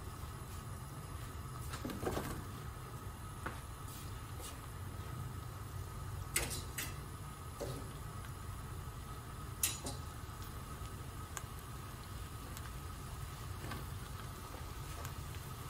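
Sliced vegetables dropped by hand into a frying pan of onions, making a few light knocks and clatters against a steady low hum from the stove.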